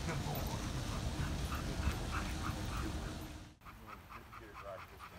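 A Doberman panting with small whines, over a low rumble of wind on the microphone. About three and a half seconds in the sound cuts off abruptly to a quieter background with a faint, evenly repeating chirping.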